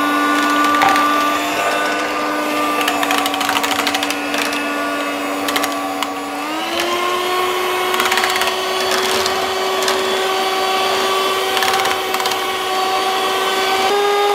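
Electric hand mixer with whisk beaters running in a bowl of cooked potatoes, milk and butter, beating them into mashed potato. Its motor hum steps up to a higher speed about halfway through, with the beaters knocking against the bowl.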